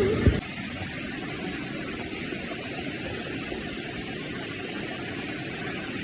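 Steady rushing of water, an even hiss with no rhythm or pitch.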